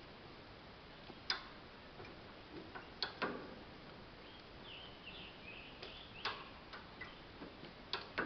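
Scattered sharp clicks and knocks, about six of them at uneven intervals, from hand tools being worked. A short run of high chirps comes about halfway through.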